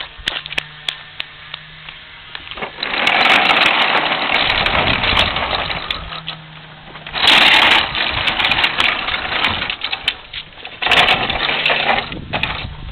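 Hard plastic wheels of a child's tricycle rolling and rattling over asphalt, in several rough stretches with scattered clicks and knocks between them.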